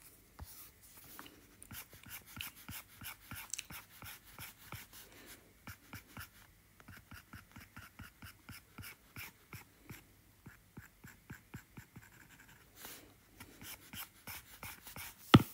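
Stylus tip tapping and sketching on an iPad's glass screen: quick runs of short, light ticks and strokes, with a brief pause a little after the middle and one sharper, louder knock near the end.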